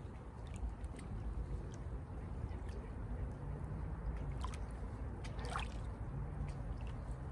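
Small lake waves lapping and splashing at the shoreline close to the microphone, with scattered little drips and gurgles over a steady low rumble.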